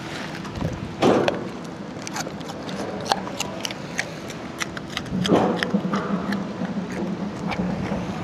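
Yellow Labrador crunching pieces of raw carrot: a string of sharp, irregular crunching clicks, with a louder noisy burst about a second in and another about five seconds in. A low steady hum joins from about five seconds in.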